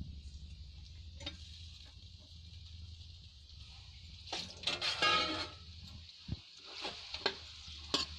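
Potato slices frying in spiced oil in a kadhai, a steady sizzle, while a steel ladle stirs them, scraping and clinking against the pan, most busily about four to five and a half seconds in. A low steady hum sits underneath.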